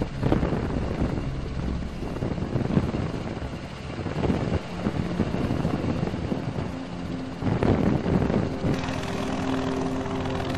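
V-22 Osprey tiltrotor aircraft running their proprotors on a runway: a rapid, pulsing chop of rotor blades over a rushing noise. Held music notes come in over it near the end.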